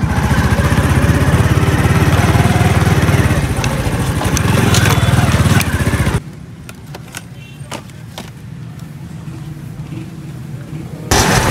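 Motorcycle engine running on the move, its fast firing pulses under a rushing hiss of ride noise. About six seconds in it cuts off suddenly to a much quieter stretch with a few faint clicks, and loud sound returns near the end.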